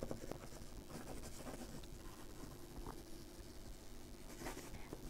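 Faint scratching of a red coloured pencil shading on paper.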